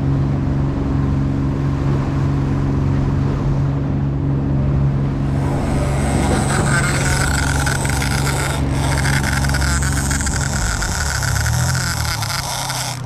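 Outboard motor running steadily under trolling power over the rush of the wake. From about six seconds in, a high ratcheting whine joins it: the game-fishing reel's drag screaming as a fish strikes and takes line. Near the end the engine note changes as the motor is throttled back.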